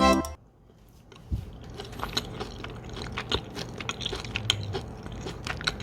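Background music cuts off right at the start. After a moment of quiet come irregular small clicks and crunches from stir-fried pork and vegetables being handled with utensils and eaten, over a low steady hum.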